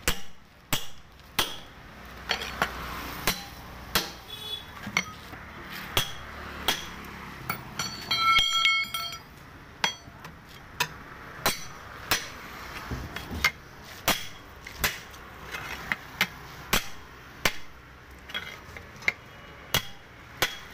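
Hammer blows on steel tyre levers and a steel wheel rim, working the bead of a 9.00-16 truck tyre off the rim: sharp metallic strikes about twice a second. Around eight seconds in comes a louder burst of ringing metal clanks.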